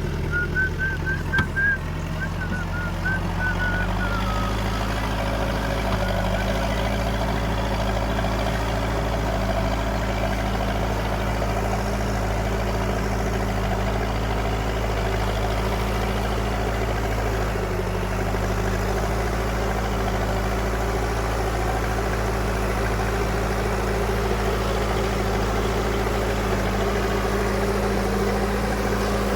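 Heavy diesel engine running steadily at an even speed. A wavering high tone sounds over the first few seconds.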